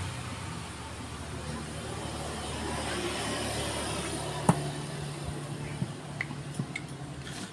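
A motor vehicle engine running with a steady low hum, under a sharp metallic click about four and a half seconds in and a few lighter clicks near the end as the scooter's gearbox cover and new oil seal are handled.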